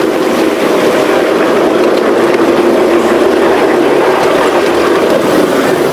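A 5-inch gauge miniature locomotive running along the track at speed, heard from the train: a steady, loud drone of its drive and wheels on the rails.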